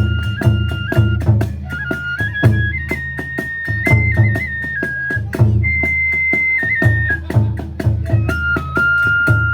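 Kagura hayashi: a transverse bamboo flute plays a melody of long held notes with quick ornaments, over a steady beat of drum strokes and sharp hits from the percussion.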